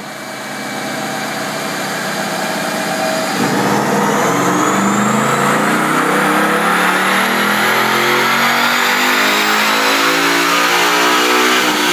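2012 Ford Mustang Boss 302's 5.0-litre V8 running steadily on a chassis dyno, then from about three and a half seconds in pulling hard under full throttle, its pitch climbing steadily as the revs rise.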